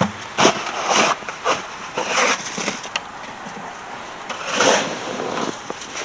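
Shovels digging into packed snow, with irregular scraping and crunching strokes, a few of them louder about a second and two seconds in and again near the end.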